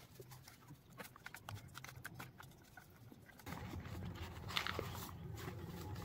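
Faint clicks and taps of hands working wires and fittings into a wall switch board. A low steady hum with a few scrapes comes in about halfway through.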